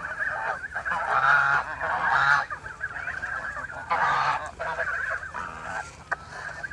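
A flock of young domestic geese honking, several birds calling over one another in bouts, loudest in the first half, with another burst a little past halfway and trailing off near the end.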